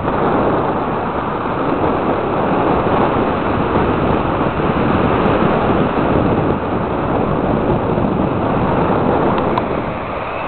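Wind buffeting the camera microphone: a steady, loud rushing noise that eases a little near the end.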